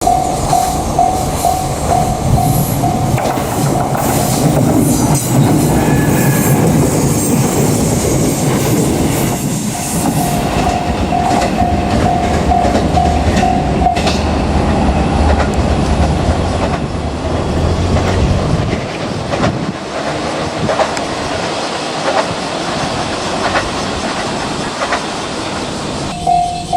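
A JR Kyushu electric train passing over a level crossing: heavy rail rumble and the clickety-clack of wheels over rail joints, easing off after about 18 seconds into lighter wheel clicks. The crossing's warning bell rings in quick repeating dings, heard plainly at the start, again around the middle, and near the end.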